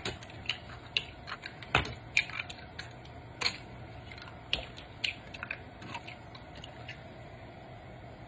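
An eggshell being cracked and pulled apart by hand: a scatter of small, sharp cracks and clicks, the loudest about two seconds in.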